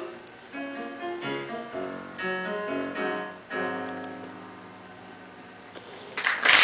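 Casio Privia digital piano playing the closing chords of a song, the last chord held and dying away. Audience applause breaks out near the end.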